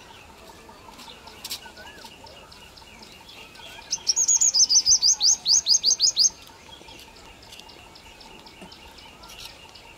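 Purple sunbird singing: a rapid burst of about twenty high, sharp notes lasting about two seconds, starting about four seconds in, the later notes sweeping upward. Faint high chirps come and go around it.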